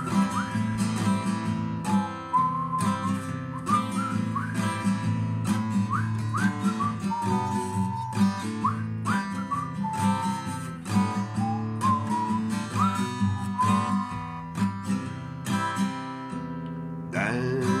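Acoustic guitar strummed in a steady rhythm while a man whistles a melody over it. A singing voice comes in right at the end.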